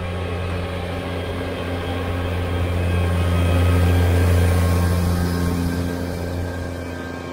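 New Holland T6000-series tractor's diesel engine running steadily under load while pulling a mounted moldboard plow. It grows louder as it passes close by about four seconds in, then eases off.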